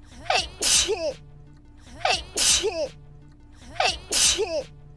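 A single high-pitched human sneeze looped over and over, three times in a row about every 1.7 seconds. Each one is identical: a short catch of breath, a sharp loud burst, then a brief squeaky voiced tail.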